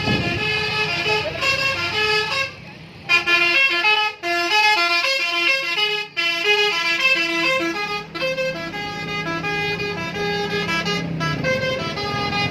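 Telolet bus horn, a multi-tone horn playing a quick tune of short stepping notes, with a brief break about two and a half seconds in.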